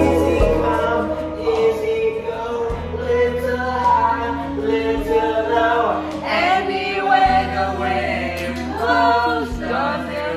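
A man and a woman singing together, with quieter background pop music and a steady bass beat underneath.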